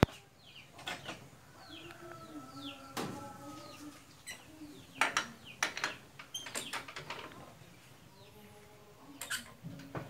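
Birds chirping over a few sharp knocks and clanks from hand work on a two-wheel walking tractor's diesel engine, which is not running.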